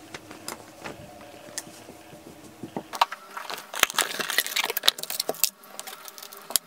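Rustling and clicking as manicure supplies are handled and set down on a towel-covered table: a cardboard box and a nail drill handpiece with its cord. The clicks come thick and fast from about halfway through.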